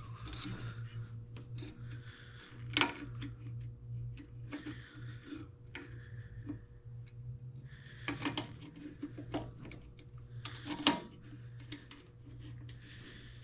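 Light metallic clicks, taps and rattles of a control cable and small fittings being handled and threaded through a scooter's steel frame, with a few sharper knocks about three, eight and eleven seconds in. A steady low hum runs underneath.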